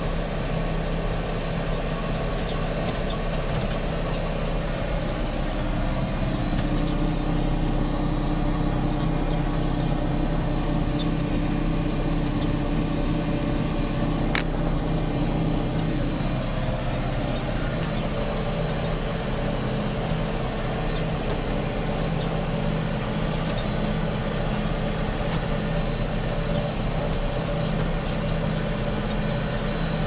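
John Deere 6310 tractor's four-cylinder diesel engine running steadily under load while pulling a four-furrow plough. Its note shifts a little now and then.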